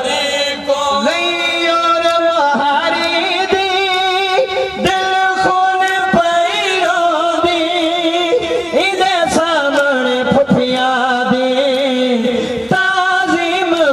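Men's voices chanting a noha, a Shia lament, in long, wavering held notes.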